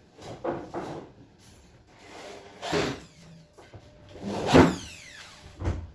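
Wooden almirah doors or drawers being moved: a few scraping slides and knocks. The loudest is a scrape with a falling pitch about four and a half seconds in, and a low thump comes near the end.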